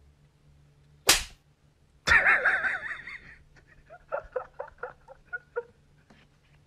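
Comedy sound effects added over the clip: a sharp swish about a second in, then a loud wavering pitched sound for about a second, then a run of short pitched blips, about four a second.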